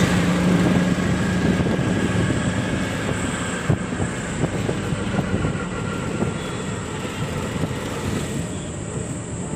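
Auto-rickshaw engine running and road and wind noise heard from inside the open-sided cab as it moves through traffic, with a steady low hum that fades after the first couple of seconds.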